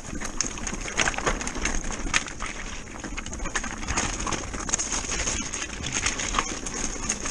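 Electric mountain bike rolling fast down a loose rocky gravel track: tyres crunching over stones and the bike rattling, with frequent irregular sharp knocks as it hits rocks.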